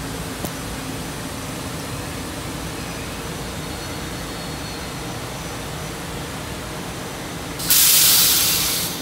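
Sudden loud hiss of compressed air venting from a stopped SEPTA Silverliner IV electric railcar near the end, fading over about a second, over steady low background noise.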